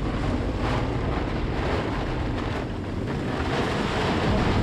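Strong microburst wind rushing over a sailboat's cockpit and buffeting the microphone, with rain and rough water beneath it: a steady, dense rush with no let-up.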